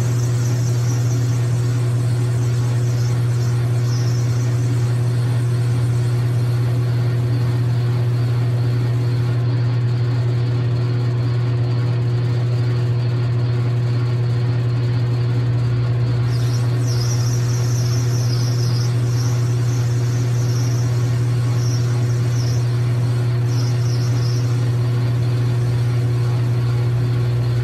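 Logan 6560 lathe running at speed, its motor and drive giving a loud, steady low hum with a few fainter steady tones above it, while a cutting tool is hand-fed along a spinning nylon bar. A higher hiss from the cut comes and goes over the hum, in the first few seconds and again from about sixteen to twenty-five seconds in.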